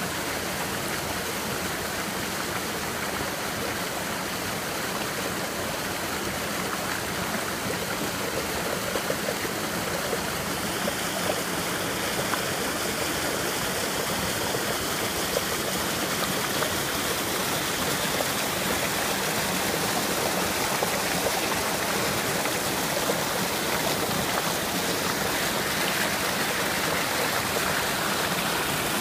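Mountain creek cascading over boulders into a pool: a steady rushing and splashing of water, growing a little louder in the second half.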